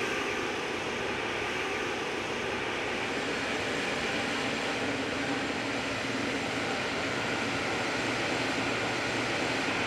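Boeing 777-300ER's GE90 jet engines running steadily at taxi idle as the airliner rolls along the taxiway, a constant even noise with no change in pitch.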